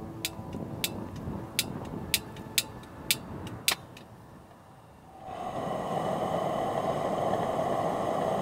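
A run of sharp, irregularly spaced clicks over faint fading tones. After a brief lull, a steady rushing noise starts about five seconds in.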